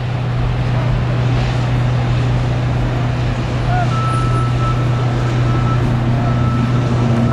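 A large engine running steadily, a low even drone. About four seconds in, a thin high tone joins it, holding in long stretches with short breaks.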